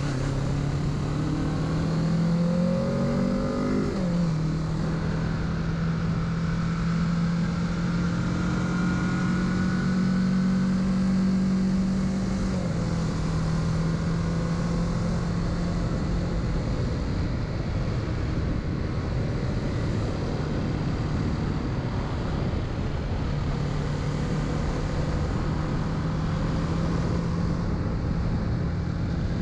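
2021 Kawasaki Z650's parallel-twin engine under way, with rushing wind noise. The engine revs up with rising pitch for about four seconds, drops sharply, then runs at a steady pitch with a slight step down near the middle.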